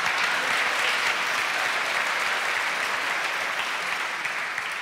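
Studio audience applauding, a dense steady clapping that slowly dies down near the end.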